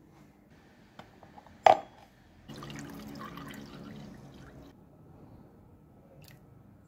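A sharp loud click, then white vinegar poured into a plastic tub over a stainless steel clock lid, splashing for about two seconds before it fades.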